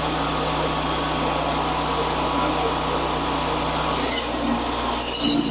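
Portable bandsaw mill's engine running steadily. About four seconds in, the band blade starts cutting into the log with a loud, high-pitched noise.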